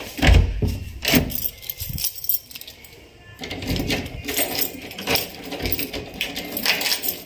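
A wooden door's metal lever handle and latch being worked. There is a knock with a thump near the start, then repeated clicking and metallic rattling as the handle and lock are turned.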